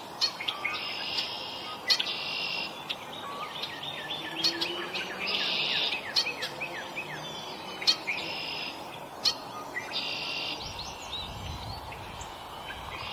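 Wild songbirds calling at a feeder: about five harsh, buzzy calls with quick falling chirps between them, and several sharp taps.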